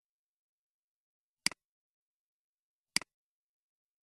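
Two computer mouse clicks about a second and a half apart, each a sharp click followed at once by a softer second tick.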